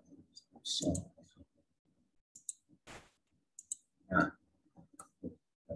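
Computer mouse clicking, a handful of short sharp clicks at irregular intervals.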